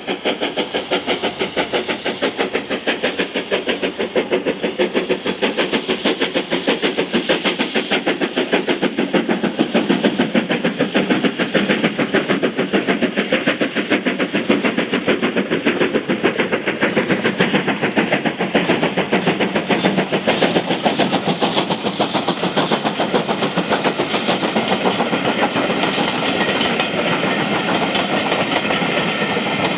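Steam locomotive working hard with a train, its exhaust beats coming in a fast, regular rhythm that grows louder as it approaches. Near the end the beats give way to the steadier rumble and clatter of the coaches passing.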